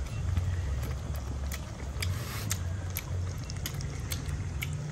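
A person chewing a piece of dry-fried fish pickle, with scattered small crunching clicks, over a steady low hum.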